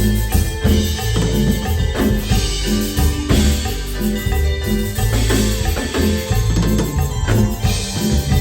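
A live band playing a song with drums and a strong, steady bass line, heard through the PA during a sound check.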